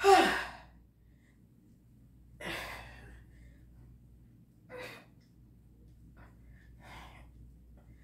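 A woman breathing hard while doing crunches: four short exhales about two seconds apart, the first the loudest, with a bit of voice in it like a sigh.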